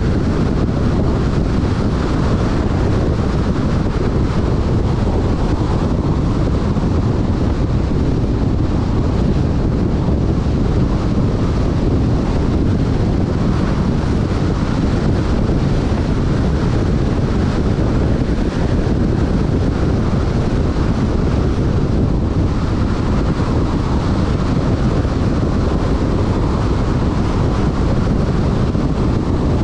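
Loud, steady wind buffeting the microphone: a dense, unbroken rumble.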